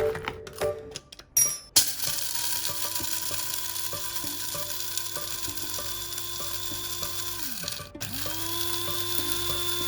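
Breville espresso machine running: a motor whine with a low hum spins up, runs steadily for about six seconds, winds down, then spins up and runs again.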